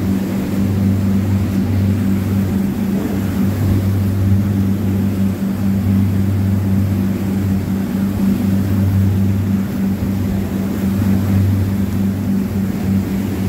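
Motor cruiser's Volvo Penta inboard engine running steadily under way: a loud, even, deep drone.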